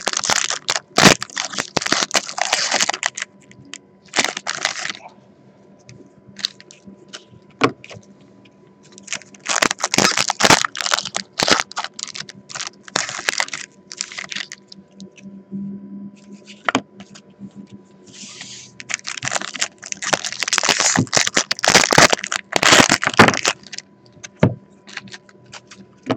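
Trading card packs being opened by hand: wrappers crinkled and torn in several bursts of crackling a few seconds long, with sharp clicks and rustles of cards between them.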